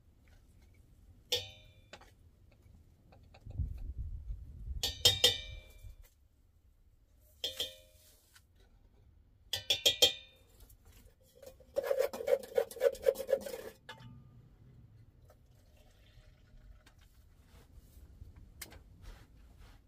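Hard objects clinking together several times, each clink ringing briefly, with a rattling clatter lasting about two seconds near the middle.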